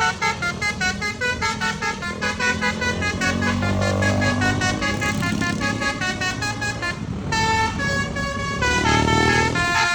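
A bus's telolet horn, a multi-note musical horn, playing a long run of quick stepping notes with a brief break about seven seconds in. A vehicle engine rumbles underneath and swells twice, around four and nine seconds in.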